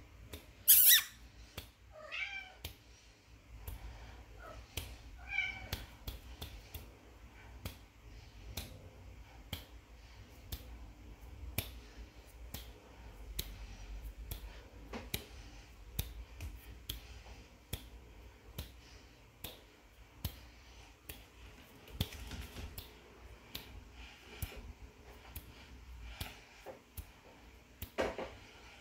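Kitten mewing: a few short, high mews about two and five seconds in. A loud sharp click comes just before them, about a second in, and faint clicks are scattered through.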